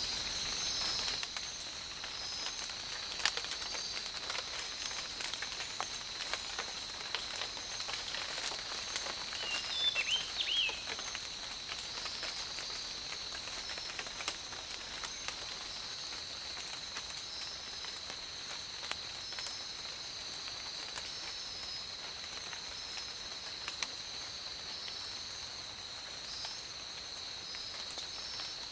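Forest ambience: a steady high-pitched drone of insects, with a second pulsing insect chorus above it. A bird gives a brief run of chirps about ten seconds in, and faint scattered clicks and ticks sound throughout.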